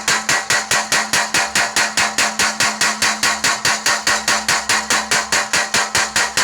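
Mechanical power hammer of a blacksmith's forge pounding in a steady rapid rhythm, about five blows a second, over the even hum of its running motor.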